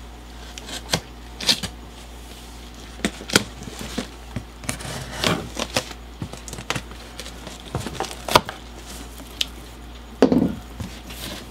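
Knife cutting the packing tape of a cardboard box and the box being handled: a string of irregular clicks, scrapes and crackles, with a louder rustle about ten seconds in.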